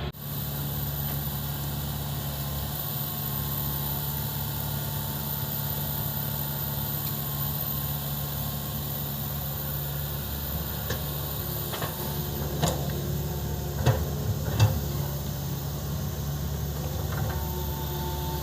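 Excavator's diesel engine running steadily, with a few sharp metallic knocks about twelve to fifteen seconds in.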